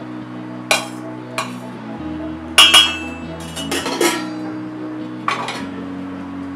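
Steel serving spoon clinking and scraping against stainless steel plates and a bowl as rice is dished out: a handful of sharp clinks, the loudest a pair about two and a half seconds in. Soft background music with held chords plays underneath.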